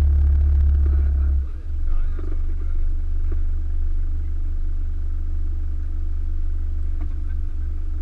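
Motorhome engine heard from inside the cab as a steady low drone. It drops in level about a second and a half in as the vehicle eases off, then runs on more quietly while it rolls to a stop.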